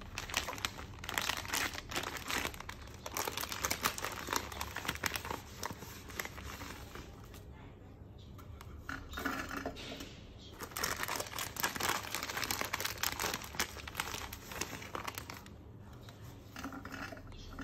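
Crinkling of a plastic spaghetti packet being handled while dry spaghetti is pulled out and fed into a cooking machine, in two long spells of dense crackle with a quieter pause between.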